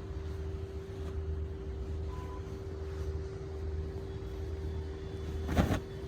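Steady low background hum with a constant mid-pitched tone running through it, and one brief louder noise about five and a half seconds in.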